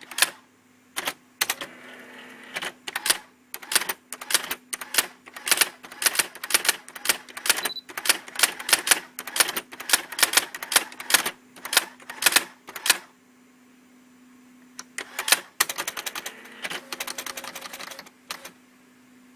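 Brother SX-4000 electric typewriter being typed on: rapid sharp key strikes over the steady hum of its running motor. The typing stops about 13 seconds in, leaving the hum, with a few more strikes and a brief whirring stretch near the end.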